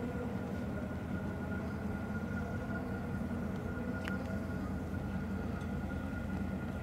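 Fireboat's diesel engines running with a steady low rumble as the boat moves slowly through the water, with a faint steady whine above it. A single click sounds about four seconds in.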